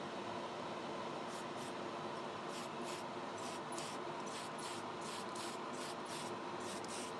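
Clear coat spraying in short hissing bursts, about a dozen from a second in to near the end, over the steady hum of a spray booth's extractor fan.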